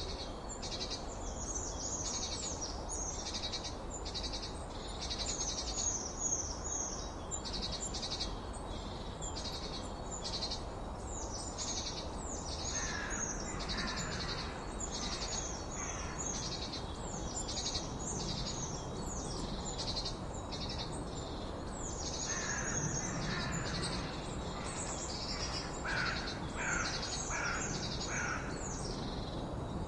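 A chorus of songbirds: many high, rapid chirping and trilling songs overlapping without a break, with lower bird notes joining about halfway through and again in the last third, over a steady background noise.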